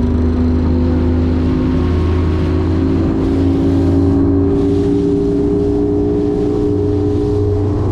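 Bass boat outboard motor running steadily under throttle, its pitch rising slowly as the boat gathers speed.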